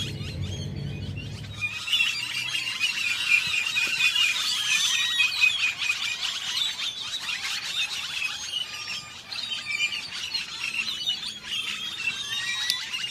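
Many small birds chirping and twittering in the bushes, their short high calls overlapping densely throughout. A low rumble sits under them for the first second and a half or so.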